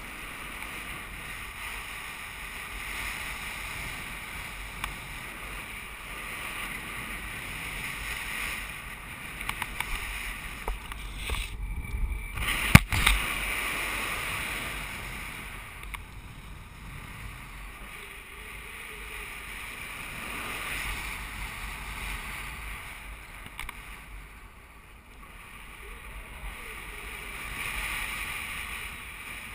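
Wind rushing over the camera's microphone as the paraglider flies: a steady rush that swells and eases every few seconds. A short spell of crackles ends in one sharp click about thirteen seconds in.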